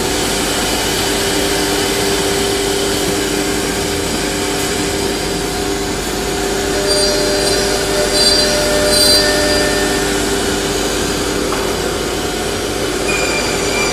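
Four-head CNC wood router running, with its spindles and dust extraction giving a steady loud machine drone and a steady hum. Short high-pitched whines come in around the middle.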